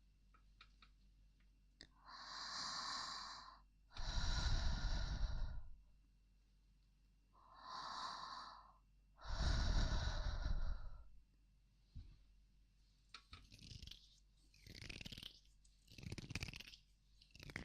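Close-miked ASMR breathing: two slow breaths, each a drawn-in inhale followed by a longer, louder exhale with a low rumble of breath on the microphone. In the last few seconds come several shorter, quicker breathy sounds.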